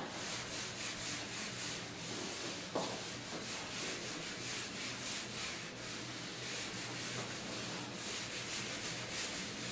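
Whiteboard duster rubbing across the board, wiping off marker writing in quick back-and-forth strokes: a steady scratchy swishing, about three strokes a second.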